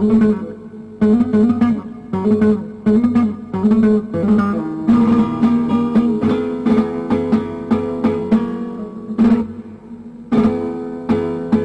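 Solo flamenco guitar played with the fingers: strong strummed chords struck at uneven intervals, with plucked notes ringing between them.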